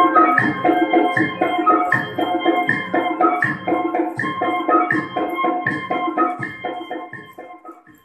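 Recorded dance music with a steady beat and a repeating keyboard-like melody, fading out over the last couple of seconds.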